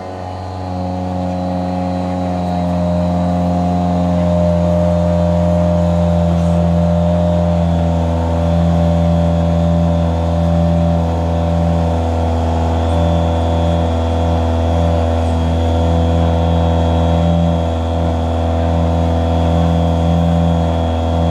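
An engine running close by at a steady, unchanging speed: an even drone with a faint high whine above it, growing a little louder over the first few seconds.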